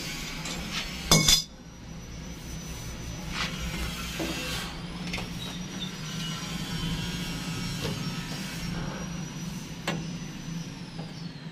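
Knocks and clinks of hand work on plastic water pipes and fittings: one loud knock about a second in, then a few lighter taps and clicks over a steady low hum.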